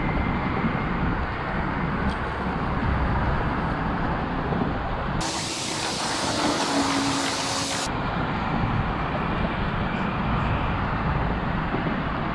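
Steady rushing outdoor noise of wind on the microphone, heaviest in the low end. Around the middle it turns thinner and hissier for about three seconds, then returns.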